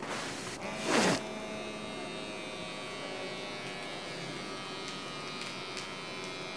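Small electric pump motor of a wrist blood pressure monitor buzzing steadily as it inflates the cuff, starting about half a second in. A brief loud noise comes about a second in.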